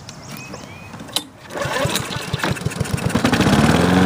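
Honda Harmony 215 push mower's engine pull-started after a tune-up: a sharp click, then the engine turns over in rapid strokes and catches about three seconds in, settling into a steady run.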